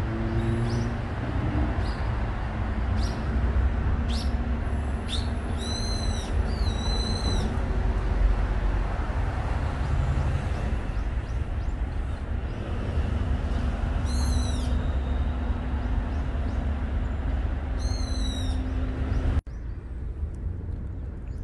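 Outdoor ambience: a steady low rumble of wind or distant traffic, with small birds chirping in short high bursts now and then, a cluster of calls a few seconds in and single calls later. The ambience drops suddenly near the end.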